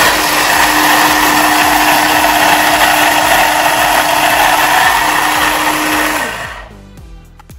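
Electric mini food chopper running, its blades grinding walnuts into crumbs with a steady motor hum. The motor is switched off about six seconds in and winds down.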